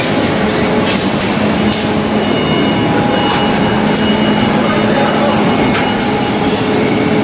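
Rubber-mixing machinery, a kneader and a two-roll mill, running with a steady hum. A faint high whine comes and goes, and there are a few light knocks.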